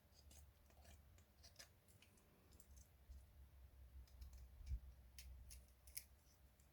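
Faint, scattered clicks and small scrapes of a Swiss Army knife and a wooden stick toggle being handled.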